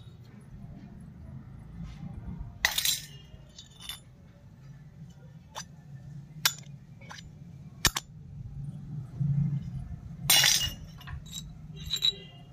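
Miniature stainless steel toy utensils clinking and tapping against each other as they are handled, among them a tiny steel cup and its lid. The taps come scattered and light, with two longer, louder clatters about a quarter and about four-fifths of the way through.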